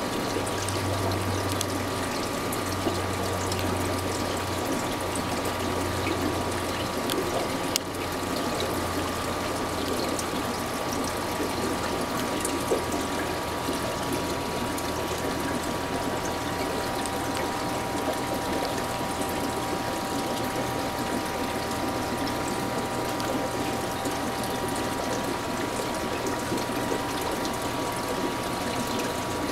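Aquarium air line and filter running: a steady wash of bubbling water over a low electric hum from the pump.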